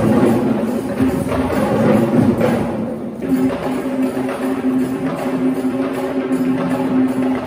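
Traditional Sri Lankan cultural drum band playing: dense, fast drumming with other percussion over a steady held note, dipping briefly about three seconds in.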